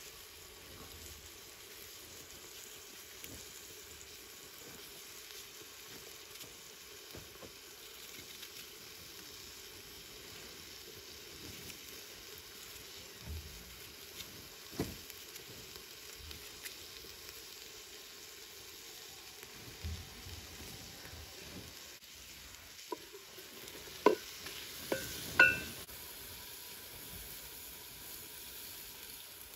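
Meat frying in a metal pot over a wood fire, a steady sizzle, with the occasional soft click of a knife slicing red onion into the pot. Near the end come a few sharp, ringing clinks, the loudest sounds here.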